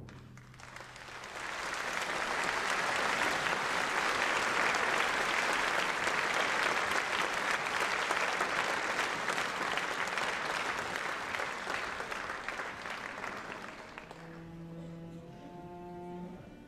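Theatre audience applauding. It swells over the first two seconds, holds steady and dies away about fourteen seconds in, as the orchestra begins with held low string notes.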